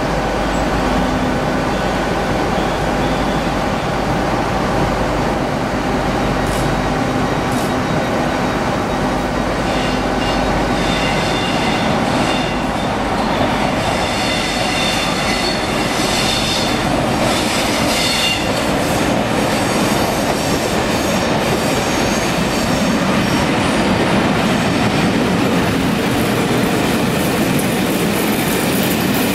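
Class 47 diesel locomotive running slowly as it hauls a train of coaches over curved trackwork. Its wheels squeal on the curves for several seconds midway, then the coaches roll past with wheel clatter over the rail joints.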